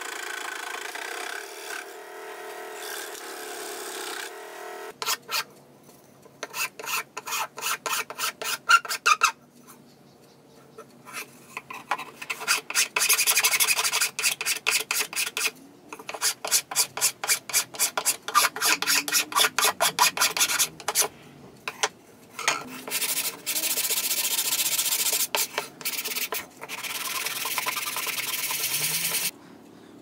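Wood being worked by hand with an abrasive tool, in runs of rapid back-and-forth strokes, about three to four a second, with short pauses between runs. For the first five seconds there is a steady hum instead.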